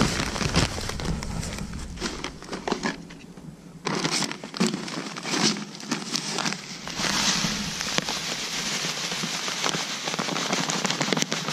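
Plastic bag of perlite crinkling and rustling as it is handled, starting about four seconds in, then perlite granules pouring from the bag into a cup with a dry crackling hiss.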